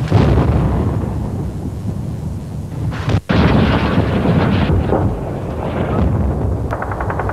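Deep, heavy rumbling of shelling and explosions, loudest right at the start, breaking off for an instant about three seconds in and then going on. Near the end a fast, even rattle of automatic gunfire starts.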